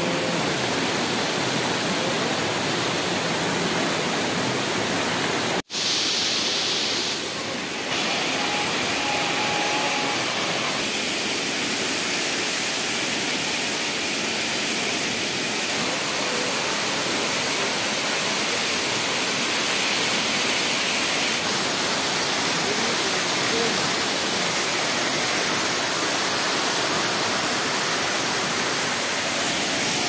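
Waterfall rushing steadily as water cascades over boulders into a rocky pool. The sound cuts out for an instant about six seconds in.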